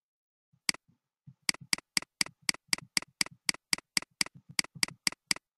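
Computer mouse button clicked rapidly and evenly, about four sharp clicks a second, starting under a second in and stopping just before the end.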